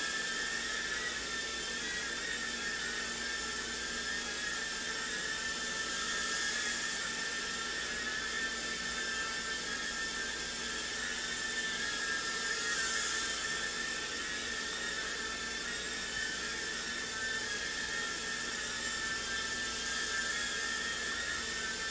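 JJRC H56 TaiChi mini quadcopter's four small motors and propellers whining steadily in flight, the pitch wavering slightly as the motors adjust. The whine swells briefly about six seconds in and again about thirteen seconds in.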